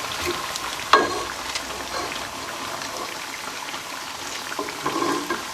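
Food sizzling in hot oil in a cooking pot, a steady frying hiss, while a utensil knocks against the pot about a second in and again near the end.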